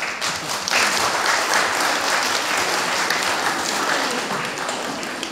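Audience applauding: many people clapping at once, swelling about a second in and easing off a little near the end.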